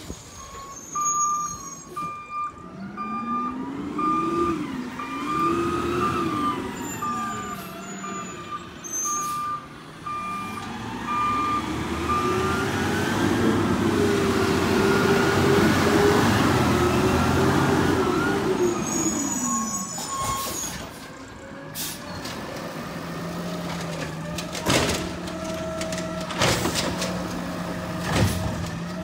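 Diesel garbage truck pulling away and turning, its engine revving up and easing off several times. A repeated warning beep sounds for the first dozen seconds, with squeals and hisses of air brakes now and then. In the last several seconds the engine settles to a steady idle with short sharp hisses.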